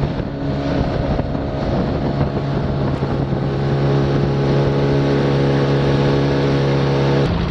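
Yamaha outboard motor running at a steady cruising speed, its hum holding one pitch, under the rush of wind and water from a boat underway. The engine tone cuts off abruptly just before the end.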